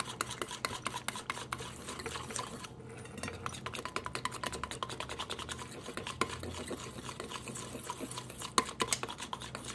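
Wire whisk beating a thin sugar glaze in a stainless steel bowl by hand, a fast run of clicks and scrapes of metal on metal, with a brief pause about three seconds in.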